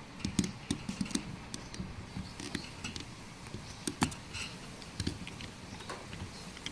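Irregular light clicks and taps of fuel pump assembly parts being handled and worked apart by hand, with one sharper knock about four seconds in.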